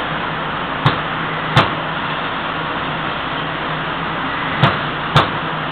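Holland Mechanics Robot DC Servo bicycle wheel machine running with a steady hum. Four sharp clicks from its mechanism come in two pairs, at about one second in and again near the end.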